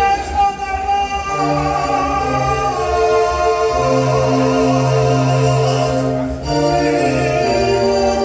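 A man singing a gospel song with vibrato over a Yamaha PSR-S975 electronic keyboard playing long held chords and bass notes.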